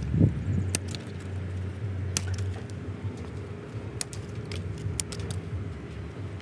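Scattered sharp snips and snaps of scissors cutting shoots and leaves being broken off a sugar apple tree, several in quick succession in the second half, over a low steady hum.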